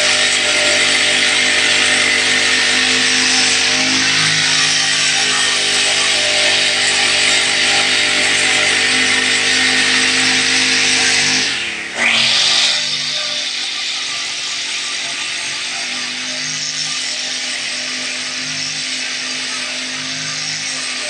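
Petrol brush cutter running steadily at cutting speed, its engine hum and the hiss of the spinning head cutting grass. About twelve seconds in there is a brief falling sweep, after which it runs on a little quieter.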